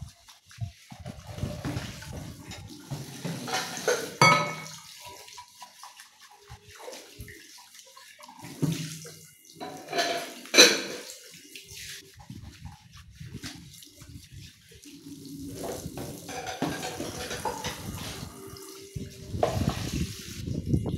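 Tap water running into a stainless steel sink while dishes and plastic bowls are rinsed by hand, with splashing and bowls knocking together. The sharpest knock comes about halfway through.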